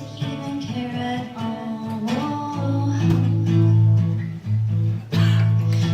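Live music: an acoustic guitar strummed, with a singing voice over it.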